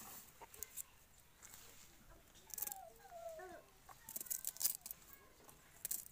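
Leafy greens with thick stalks being handled and stripped by hand, giving crisp rustling and crackling that comes in short bursts and is loudest past the middle. A few short gliding calls are heard near the middle.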